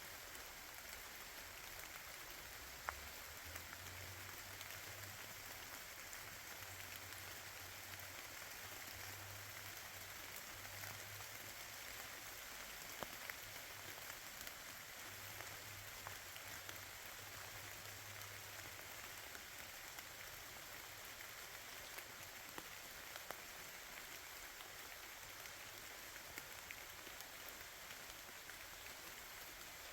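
Light rain falling: a faint, steady hiss with scattered single drips.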